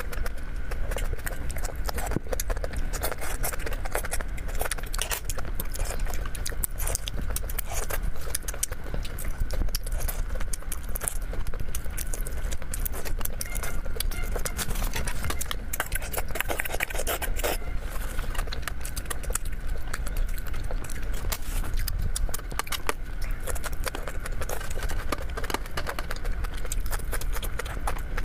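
Close-miked chewing and crunching of whole shrimp, a dense run of crackly clicks.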